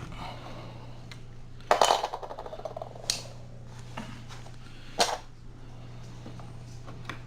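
Metal clicks and knocks from prying an old door latch out of the door edge and handling it, the loudest a short rattling clatter about two seconds in, with single knocks after. A steady low hum underneath.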